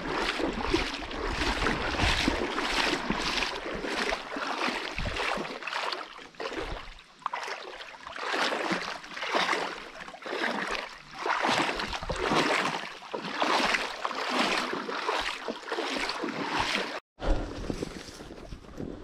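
A person pushing on foot through thick vegetation, a swishing rustle with each stride, about two strides a second. The sound drops out for a moment about 17 seconds in, then carries on.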